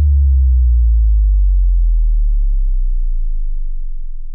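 Deep synthesized bass tone with a few overtones, sliding slowly and steadily down in pitch and fading, with a pulsing wobble creeping in after about three seconds: a logo-animation sound effect.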